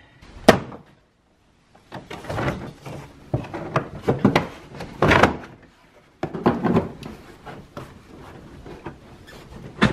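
A plastic retaining clip in a Tesla Model S cargo area snapping out about half a second in, then the carpeted floor liner being pulled and peeled up in several scraping, rustling tugs, with another sharp snap near the end.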